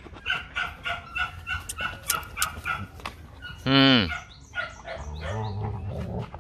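Young Rottweilers at play: quick rhythmic panting up close, then a single loud, short bark with a falling pitch about four seconds in, followed by a low growl.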